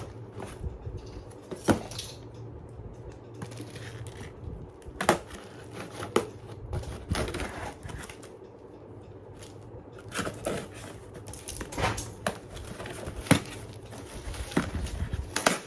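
A cardboard parcel being opened and its packaging handled by hand, with scattered knocks, clicks and rustles.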